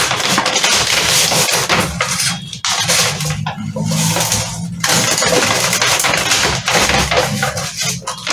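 Brown paper mailer crinkling and rustling as it is handled and a boxed phone is slid out of it, in bursts with a couple of short lulls.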